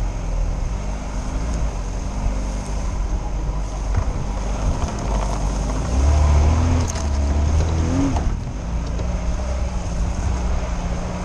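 Lada Niva engine running as the car is driven over rough off-road ground, heard from inside the cabin, louder for a couple of seconds around the middle, with a few knocks from the body and suspension.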